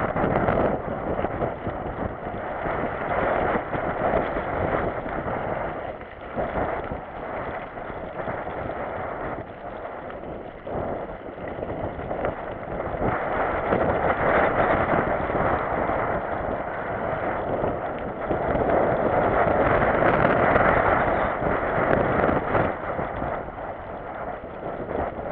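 Wind rushing over the microphone of a camera on a moving mountain bike, with the tyres running on a wet, muddy trail and the bike knocking and rattling over bumps. The rush swells and eases, loudest in the second half.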